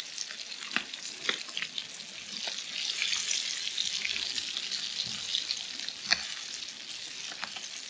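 Fish pieces frying in oil in a Trangia 27 cookset pan over its alcohol burner: a steady sizzle that swells a few seconds in. A few sharp clicks of the metal pot gripper and tongs against the pan.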